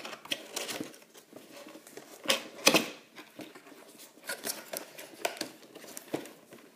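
Irregular clicks and crinkling rustles of cardboard and plastic toy packaging being handled while twist ties are worked loose, with the loudest cluster a little over two seconds in.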